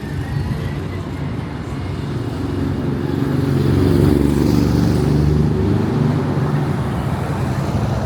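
A motor vehicle's engine passing close by on the street, growing louder to a peak about halfway through and then fading.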